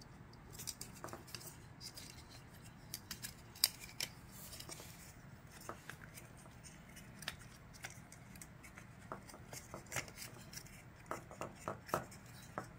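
Faint, scattered light clicks, ticks and rubbing from handling a refrigerator evaporator fan motor and its soft silicone boot.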